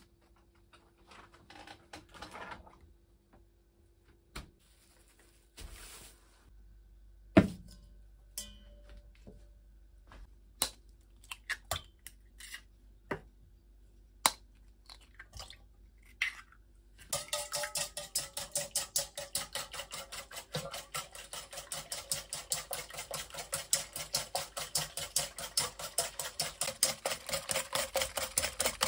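Kitchen items knocking and clicking as they are set down, with one sharp knock about seven seconds in, then eggs being beaten by hand with a whisk in an enamel bowl: a fast, steady, rhythmic clatter and scrape against the bowl that starts about two-thirds of the way through.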